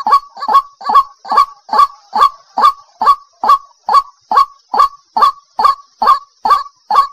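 White-breasted waterhen (ruak-ruak) calling: an even, unbroken series of short harsh notes, a little more than two a second. It is a bird-catcher's lure recording, the call of a female used to draw in males.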